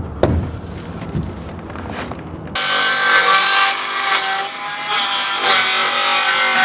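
Wooden boards knocking and thumping as they are handled against the frame. Then, from about two and a half seconds in, a circular saw runs steadily, cutting across a panel of wooden boards.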